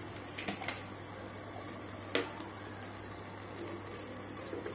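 A steel spoon mixing moist millet pulao in a clay pot: soft squishing with a few light clicks of the spoon against the pot, the sharpest a little after two seconds in. A steady low hum runs underneath.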